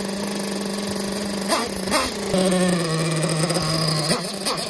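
Brand-new Picco nitro glow engine in a Kyosho Inferno MP10T 1/8 truggy idling steadily on its first start, not yet run in. Its pitch drops a little about halfway through, with a few short sharp blips.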